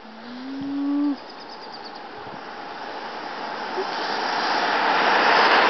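A single short moo from one of the young cattle, about a second long and rising slightly in pitch. Then a rushing noise on the microphone builds steadily louder.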